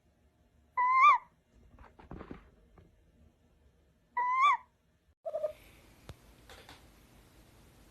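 An owl calling twice, two short high-pitched calls about three seconds apart, each rising a little and then dropping, with soft rustling between them and a brief lower call near the end.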